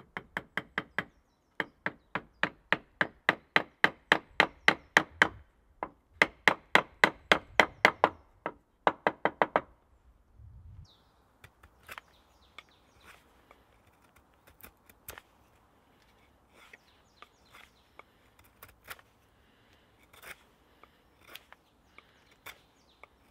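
A wooden dowel being knocked into a drilled hole in a log beam: runs of sharp, ringing wooden knocks, about four a second, for the first ten seconds. After that, a knife whittling the end of a wooden dowel, with light scrapes and scattered clicks.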